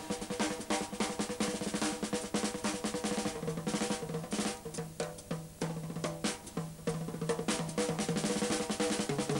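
Drum kit played in fast, dense rolls around the snare and toms, with bass drum strokes underneath.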